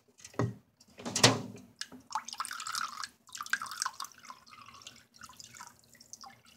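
Water poured from a cup into a shallow water dish, splashing and trickling. Two sharp knocks come about half a second and just over a second in, before the pouring.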